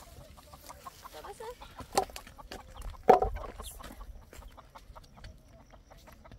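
Domestic chickens clucking, with scattered small clicks and taps; two sharp louder sounds at about two and three seconds in, the second the loudest.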